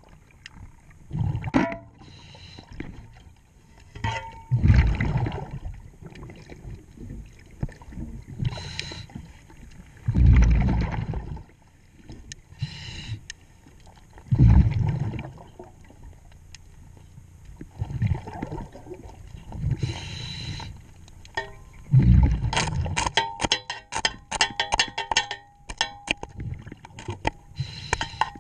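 Scuba regulator underwater: exhaled bubbles rumble out in bursts every few seconds, with fainter hissing inhalations between. In the last six seconds a rapid run of metallic clicks and clinks rings out as the propeller is worked on.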